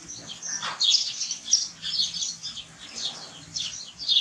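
Small birds chirping busily, many short, high chirps overlapping one another without a break.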